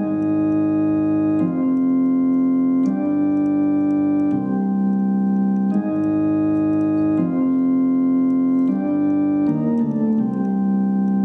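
Intro music of sustained organ chords that change about every second and a half, with a quicker run of notes near the end settling into a held final chord.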